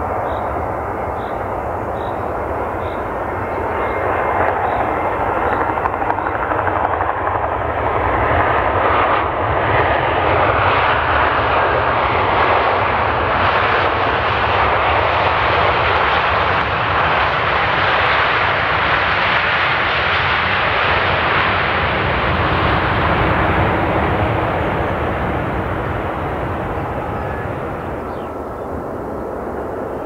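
Jet engines of an S7 Airlines Airbus A320-family airliner on its landing roll-out. A broad roar swells a few seconds in, stays loud as the jet rolls past, and fades near the end.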